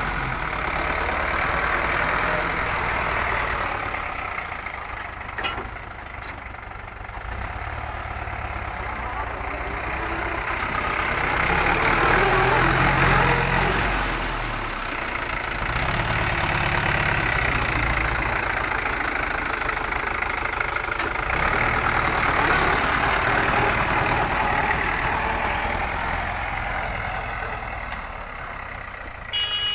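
Mahindra 475 DI tractor's diesel engine running under work, swelling louder about twelve seconds in and again a few seconds later, then easing off near the end.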